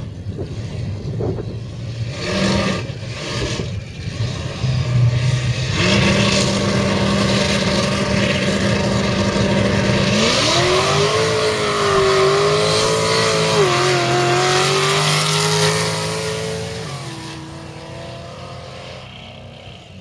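A muscle car and a sports car drag racing: engines revved at the start line, then held at a steady high note before launching about ten seconds in. The engine pitch climbs, dropping at gear changes, and fades as the cars pull away down the strip.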